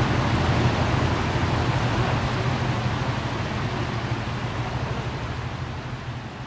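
Steady rushing splash of a fountain spraying into a pond, over a low rumble, fading out gradually through the second half.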